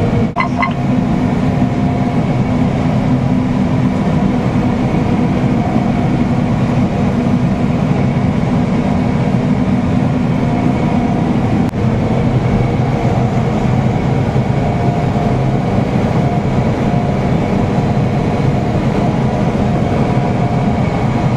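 John Deere combine running steadily while harvesting wheat, heard from inside the cab: a constant heavy drone with a steady whine above it. A brief click comes right at the start and a short dip about twelve seconds in.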